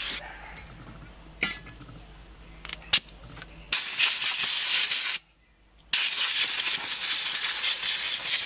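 Compressed-air blowgun hissing as it blows out the oily flywheel end of an air-cooled VW engine's crankshaft: two long blasts, the first starting about four seconds in, the second after a short break about a second later, with a few faint clicks before them.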